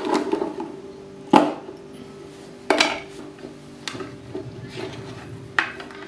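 A screwdriver and the plastic contactor and circuit breaker being handled and set down on a wooden tabletop. Three sharp knocks and clicks come about a second and a half in, nearly three seconds in, and near the end.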